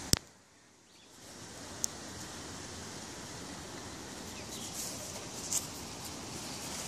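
Steady outdoor background noise with a sharp click just after the start, then about a second of near silence before the background returns, with a few faint high chirps later on.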